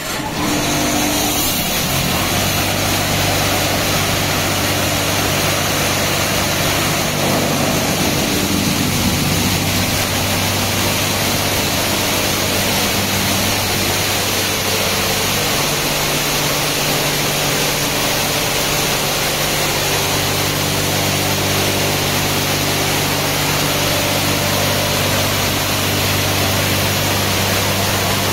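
High-pressure water jets from a touchless automatic car wash's spray bar hiss steadily onto a car's body, cutting in suddenly at the start. Under the spray runs a steady low hum from the wash machinery.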